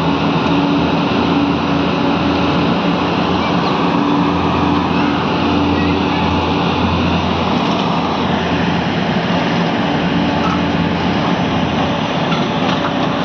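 Heavy diesel engine running steadily with a low, even drone: the puller truck hauling an oversized load on a many-axled hydraulic modular trailer.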